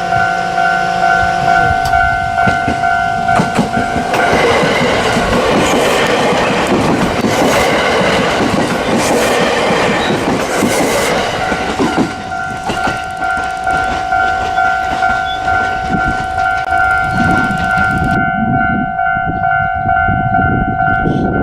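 Japanese railway level-crossing warning bell ringing steadily. An electric train passes over the crossing from about four seconds in, its wheel and rail noise drowning out the bell for several seconds before the bell is heard alone again.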